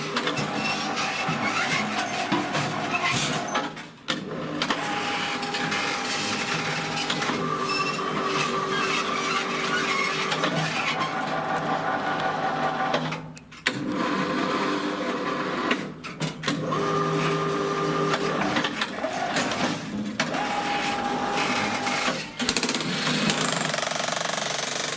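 Homemade electric power shovel's machinery running: a busy mechanical rattle with a motor whine that shifts pitch, cutting out briefly several times.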